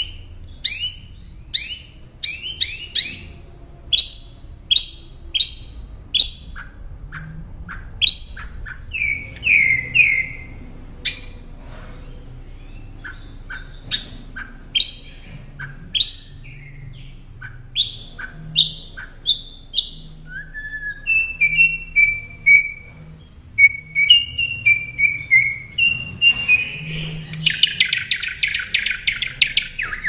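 Northern mockingbird singing: a fast, varied string of short whistled sweeps and chirps, with each phrase repeated a few times before the next. Near the end it gives a buzzy, grating phrase about two seconds long.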